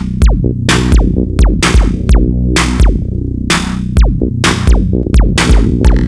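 Background electronic music with a steady beat of sharp drum hits, each followed by a quick falling synth tone, over a sustained low bass.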